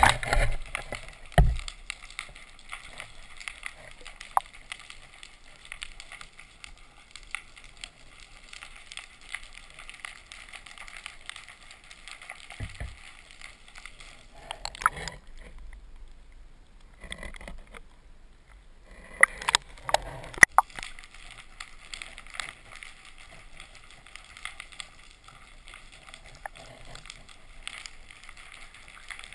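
Muffled underwater sound picked up by a GoPro in its waterproof housing: a faint steady water hiss with a few sharp knocks and bumps, one about a second in and a cluster around twenty seconds in.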